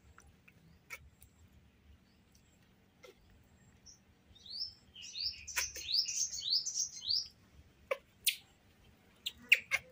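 Newborn baby monkey giving a quick run of high, squeaky chirps for about three seconds, starting about halfway through, while being rubbed dry in a towel. A few short clicks and towel rustles come before and after.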